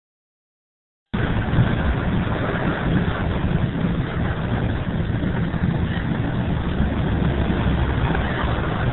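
Steady engine and road noise inside the cab of a large vehicle driving at highway speed, starting abruptly about a second in, with a deep rumble under a constant hiss.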